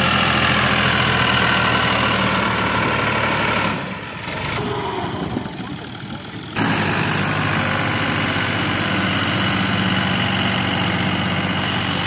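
Fiat 480 tractor's diesel engine running under load as its wheels spin in soft sand, trying to pull a stuck, loaded trolley free. The engine sound drops away a little under four seconds in and comes back suddenly a few seconds later.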